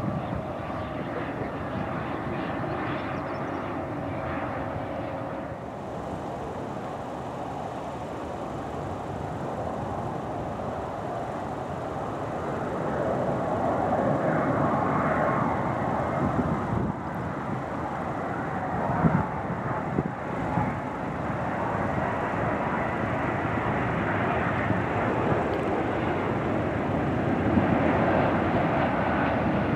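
Jet engine noise: for the first few seconds a small jet's single turbofan whines as it rolls on the runway. From about twelve seconds in, a Boeing 777's twin turbofans grow louder and stay loud as it descends to land, with a few brief low thumps.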